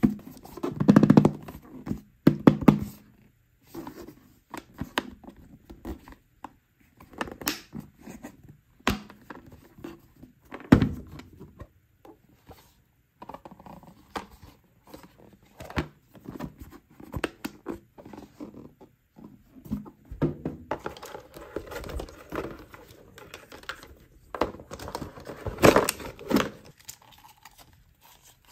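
Handling of a hard plastic toy case: scattered clicks, taps and thunks as it is handled and opened. In the last third, clear plastic wrapping crinkling and tearing as a toy piece is unwrapped.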